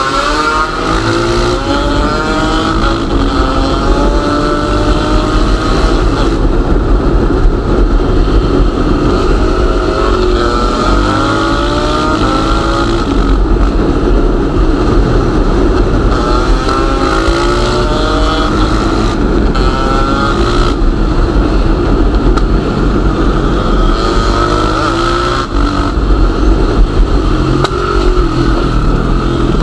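Two-stroke KTM motorcycle engine running hard, its pitch climbing under throttle and dropping back again and again, as in repeated hard acceleration.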